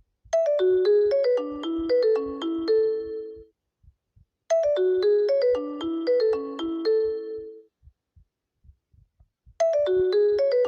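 iPhone ringtone playing: a short melody of quick, bell-like struck notes, heard twice with short pauses between and starting a third time near the end.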